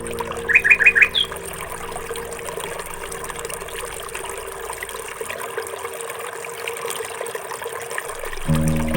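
Water trickling steadily. A bird chirps a quick run of four notes about half a second in, then once more just after.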